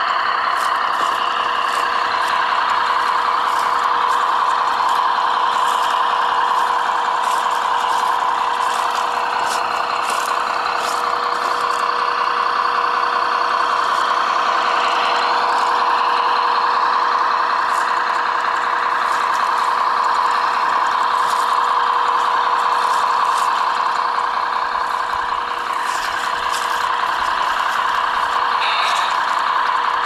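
Radio-controlled scale model Peterbilt logging truck running, a steady truck-like drone with a constant hum underneath and faint scattered clicks.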